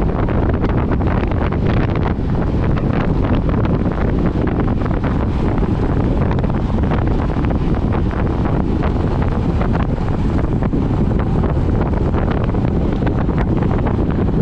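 Steady wind buffeting the microphone of a camera riding on a road bike at speed, a dense low rumble with many small ticks and rattles running through it.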